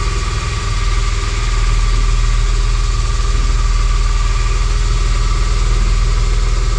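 An engine running steadily at an even idle, with a thin steady whine above its low drone.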